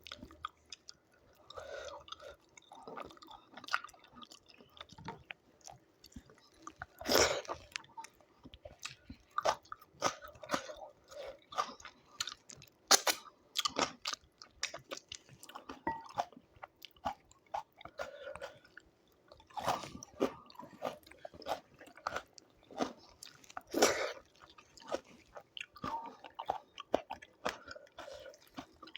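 Close-up eating sounds of a person eating doi chicken with rice and raw vegetables: irregular wet chewing and smacking, with four louder crunchy bites spread through.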